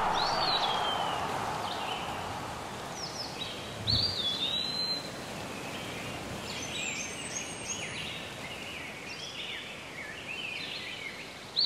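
Birds calling with short whistled chirps and sweeping notes over a steady outdoor hiss. A louder noise fades away over the first two seconds, and there is a brief low thump about four seconds in.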